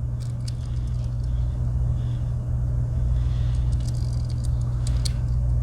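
Steady low hum in the background, with a few faint light clicks and scrapes of a Victorinox Huntsman Swiss Army knife being handled as its multi-purpose hook is opened.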